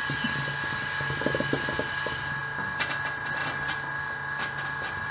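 Hookah water bubbling as smoke is drawn through the hose: a quick run of gurgles about a second in, followed by scattered short puffs of breath as the smoke is blown out. The draw is weak, which the smoker puts down to poor airflow.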